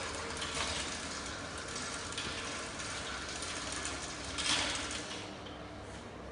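Prototype Aido home robot's wheeled drive base running as it moves across the floor, a steady mechanical whirring and rattling with a louder clatter about four and a half seconds in, after which it goes quieter.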